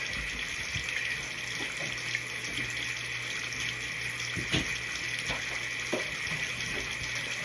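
Bathroom sink tap running steadily, water streaming into the basin, with a few faint knocks.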